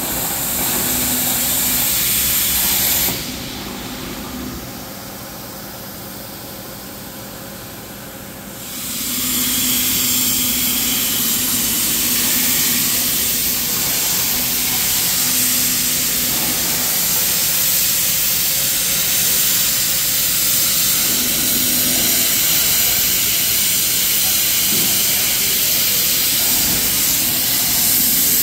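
CNC plasma cutter torch cutting steel plate: a loud, steady hiss of the arc and its air jet. The hiss stops about three seconds in and starts again some six seconds later, then runs on steadily.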